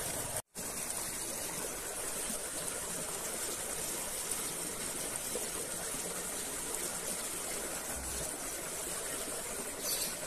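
Steady rushing of a small flowing stream, with no break except a moment of dead silence about half a second in.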